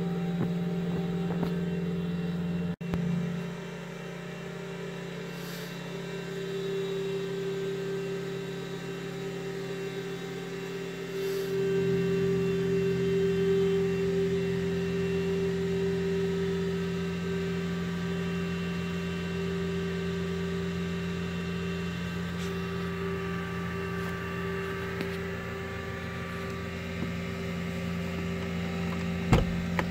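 An engine running steadily with a low, even hum. The sound breaks off sharply about three seconds in and grows louder about eleven seconds in. A single sharp knock comes near the end.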